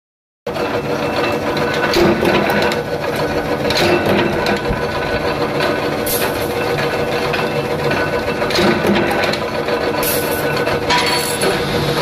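Mechanical power press running with a steady hum, its die striking every two seconds or so with a sharp clank as it punches seat belt latch plates out of steel strip.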